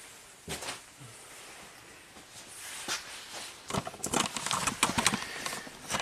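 Handling noises: a soft knock about half a second in, then a run of sharp clicks and taps from about two and a half seconds on, thickest near the end.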